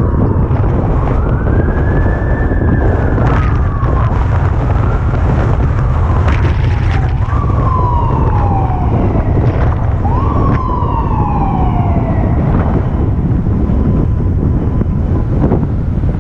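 Fire truck siren wailing, each cycle a quick rise and a long falling sweep, repeating about every three seconds and dying away about thirteen seconds in. Under it runs a steady low rumble of wind on the helmet camera's microphone.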